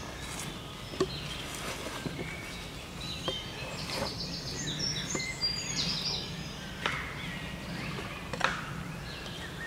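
A sapie (forestry pickaroon) with a steel point hooking into split log blocks and dragging and flipping them over the ground: a few sharp knocks, the strongest about a second in and near the end. Birds chirp in the background.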